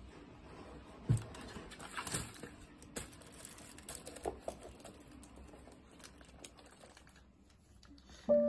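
Small knocks, clicks and crinkling of handled packaging: wrapped sweets and a cardboard gift box being moved about by hand, with a sharp thump about a second in. Music starts right at the end.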